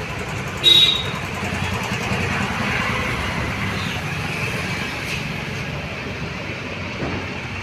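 Large-hook model 202 sewing machine running steadily, a fast, even mechanical rattle. There is one sharp metallic clink with a short ring about a second in.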